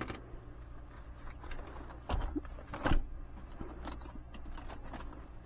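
Small metal clinks and scrapes of parts and tools being handled, with two louder knocks about two and three seconds in, over a steady low hum.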